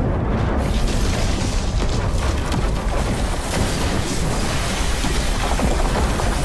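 Film sound effects of an earthquake destroying a city: a deep, continuous rumble mixed with the crashing of collapsing buildings and falling debris, swelling in suddenly at the start.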